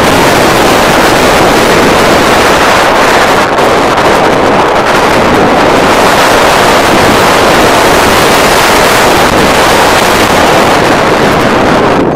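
Steady rush of wind buffeting the microphone as a paraglider flies, with no gaps or changes.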